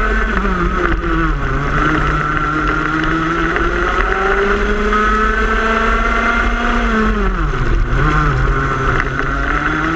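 Racing kart engine at race speed, heard from on board: the revs drop about a second in as it slows, climb slowly, dip sharply a little before eight seconds, then rise again under acceleration.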